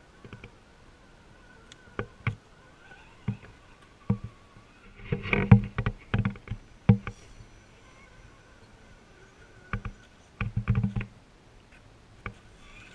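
RC4WD Gelände II Defender scale RC crawler working over woodland ground: a faint electric motor and gear whine with scattered sharp knocks, and two louder stretches of thumps and crunches about five and ten seconds in.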